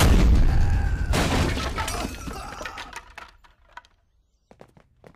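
A loud crash of something breaking, with crackling fragments scattering and settling over about three seconds. A few light taps come near the end.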